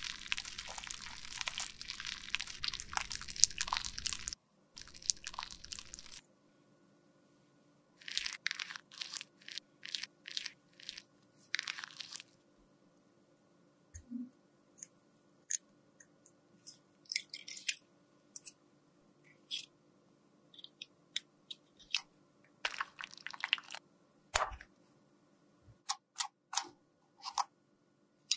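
A metal spatula scraping and crunching crumbly lipstick out of a lipstick case: dense for about the first four seconds, then short scattered scrapes and light clicks and taps.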